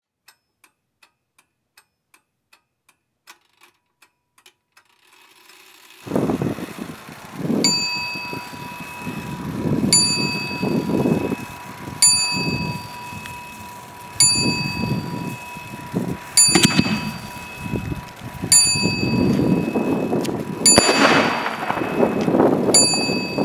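Fireworks being set off, heard as swells of rushing noise that grow louder near the end, with a bell-like ring about every two seconds. The first few seconds hold only faint, regular ticks, about three a second.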